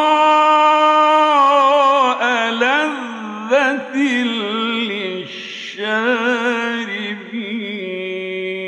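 A male Quran reciter chanting in the melodic, ornamented (mujawwad) style, drawing out a phrase in long held notes that waver and turn. It is loudest in the first two seconds.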